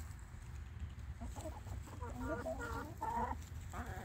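Backyard hens clucking: a run of short, repeated calls that starts about a second in and comes thickest in the second half, over a low steady rumble.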